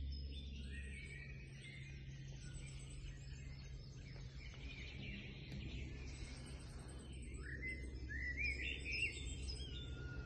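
Several songbirds singing and calling at once, with overlapping high chirps and phrases throughout. About eight seconds in there is a louder run of rising notes. A low steady rumble runs beneath.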